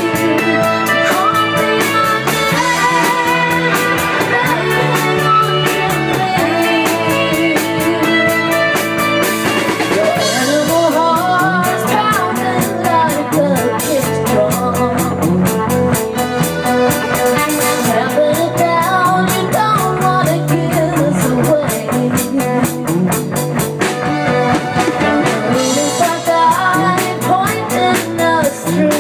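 Live rock band playing a song: drum kit, electric guitars, bass and keyboard. A woman's lead vocal comes in about ten seconds in.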